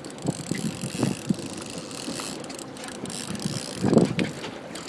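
Trolling reel clicking and ticking irregularly while a hooked king salmon is fought on the rod, over steady wind and water hiss, with a louder patch about four seconds in.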